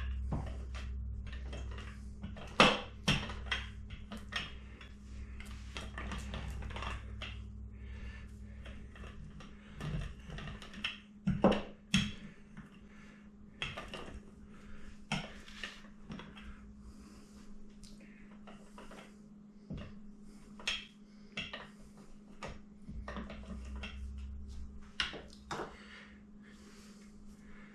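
Wooden rolling pin rolled back and forth over a pasta sheet on a metal ravioli mold, giving irregular knocks, clicks and clatters as the pin and mold bump on the counter. A steady low hum runs underneath.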